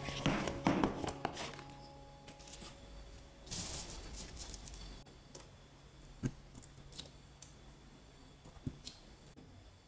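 Loose coloured sand shaken off a bent sheet of sticker paper, the grains pattering and the paper crinkling in the first second or so. The sheet is then laid down with a brief rustle, followed by a few light clicks of tweezers on the paper.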